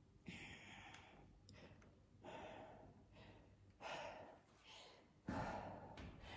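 A woman breathing out hard, about four faint sighing breaths a second or so apart, catching her breath after exercise.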